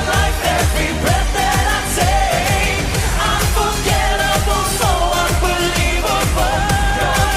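Pop song with a steady, driving beat and a singing voice over it.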